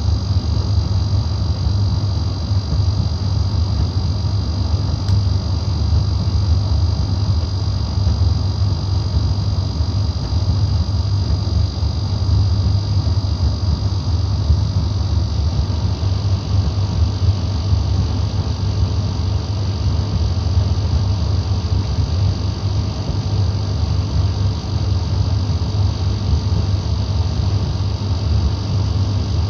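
Gorenje D85F65T tumble dryer humming: a loud, steady low hum with a thin high whine that fades about halfway through. The owner treats the hum from this two-day-old dryer as a fault.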